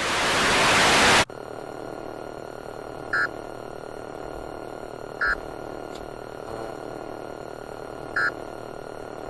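A loud rush of white-noise static swells for about a second and cuts off suddenly, leaving a steady low electronic hum and hiss. Short electronic beeps sound three times, two to three seconds apart.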